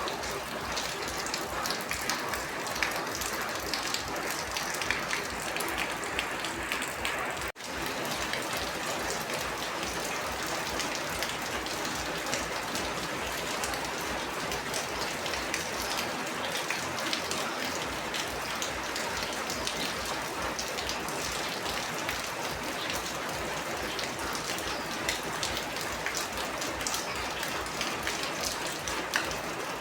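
Rain falling steadily, a dense even patter of many drops, with a momentary dropout about seven and a half seconds in.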